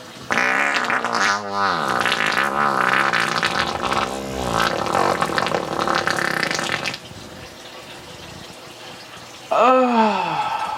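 Long wet fart noise from the Sharter fart toy, wavering in pitch for about seven seconds. A brief sound falling in pitch follows near the end.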